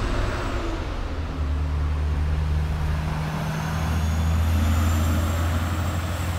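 A motor vehicle driving past on the road, its low engine hum swelling to loudest about five seconds in.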